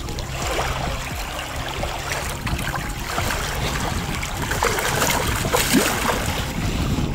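Shallow water sloshing and lapping around the angler's hands and a channel catfish being released, with splashing about five to six seconds in as the fish kicks free.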